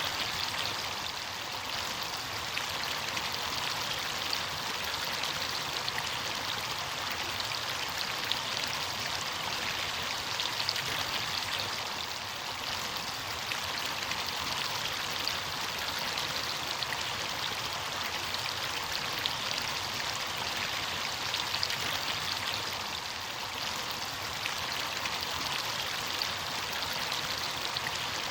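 Running water: a stream or small cascade flowing steadily, a continuous splashing rush with fine droplet detail.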